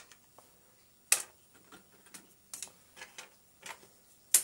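Clicks and ticks of a diecast mecha figure's sword sheath and adapter pieces being handled and fitted: a sharp click about a second in, a few softer ticks, and another sharp click near the end.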